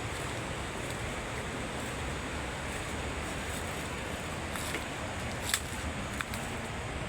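Waterfall on a forest river: a steady rush of falling water. A few brief sharp ticks sound between about four and a half and six seconds in.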